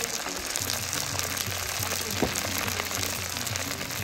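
Red palm oil with sliced onion and ground pepper sizzling in a metal pot over a wood fire, a steady crackle of many fine pops. Background music runs underneath.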